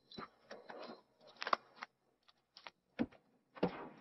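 Scuffling, claw clicks and a few sharp knocks as a large dog is pushed and scrambles out through a car door. The sharpest knocks come about a second and a half in and again about three seconds in.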